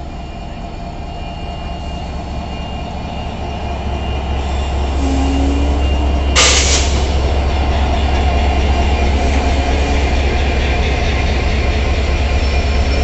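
WDM3D diesel locomotive's V16 engine running with a heavy low rumble, growing louder as the locomotive comes close alongside. A brief loud burst of noise comes about six seconds in.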